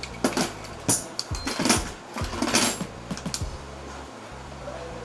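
Small clicks, taps and rattles of metal objects being handled: a 40mm airsoft gas shell being hooked on and off a small hanging scale for weighing.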